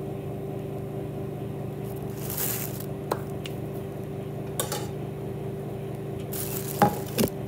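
Plastic bread bag crinkling and rustling in a few bursts, then two sharp knocks near the end, over a steady low hum.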